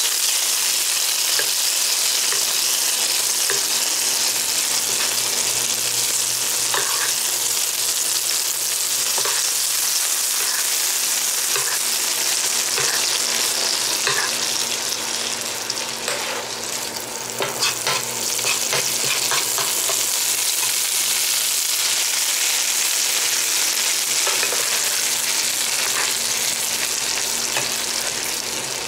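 Pork chops frying in hot oil in a frying pan, a steady sizzle, with a utensil now and then clicking against the pan, most often around the middle.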